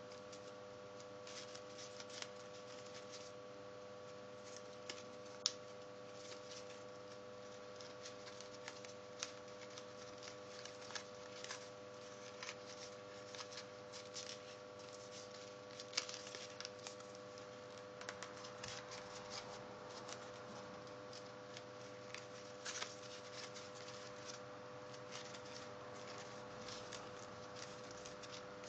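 Folded paper crinkling and rustling as fingers crease and shape an origami model, with scattered small crackles and clicks, a couple of them sharper, over a faint steady hum.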